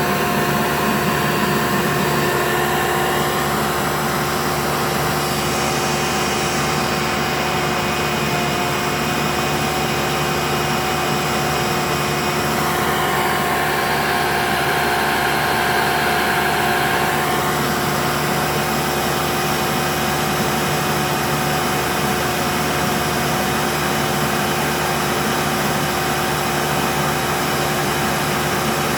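Hoover Elite U4717-930 upright vacuum cleaner running at full power, a steady motor whine over rushing air. The air noise swells briefly around the middle.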